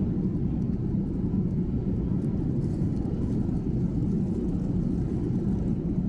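Airliner cabin noise: a steady low rumble of jet engines and airflow heard from inside the passenger cabin.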